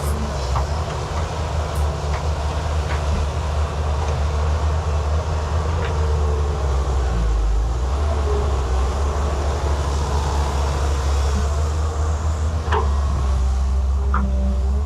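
JCB excavator's diesel engine running steadily with a deep rumble, with a few short sharp clicks from the machine near the end.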